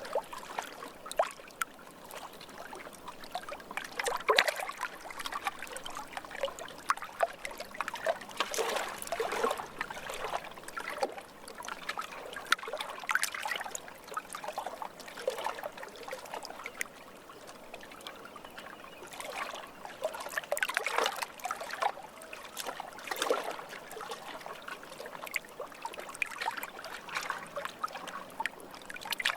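Lake water lapping at the shore: irregular small splashes and trickles over a steady wash, with louder clusters of lapping every few seconds.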